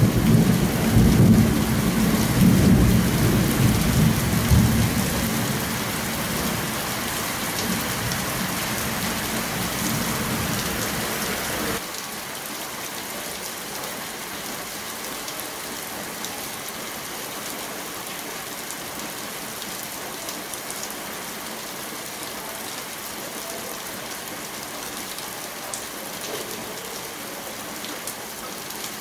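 Heavy rain with a low rolling rumble of thunder that fades over the first five seconds or so. About twelve seconds in the sound drops abruptly to a quieter, steady rain, falling as water streams off the edge of a corrugated metal roof.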